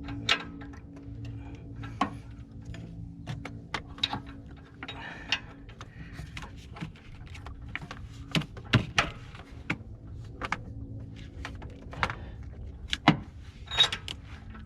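Irregular clicks, taps and knocks of hands and metal tools working in an engine bay while a new oxygen sensor is threaded in, over a faint steady hum. A few sharper knocks come about eight to nine seconds in and again near thirteen seconds.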